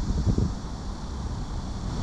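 Wind buffeting the microphone in gusts, strongest in the first half second, over a steady low rumble.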